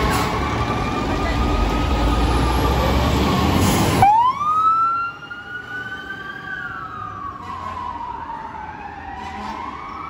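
FDNY fire apparatus responding: a heavy fire truck's diesel engine running loud with a siren slowly wailing over it. About four seconds in there is a sudden loud burst, then the engine noise falls away and an electronic siren sweeps up and down in a wail.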